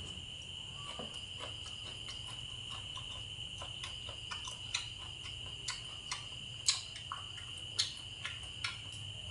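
Chewing, with scattered sharp clicks of chopsticks against the bowl and pan. Under it run a steady high-pitched insect trill and a low hum.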